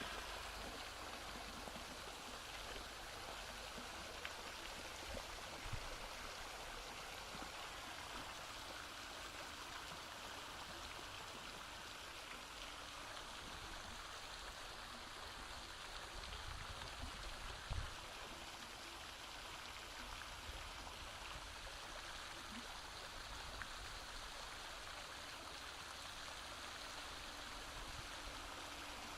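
Flowing water, a steady even rushing like a stream, running without change, with a couple of soft low thumps about six and eighteen seconds in.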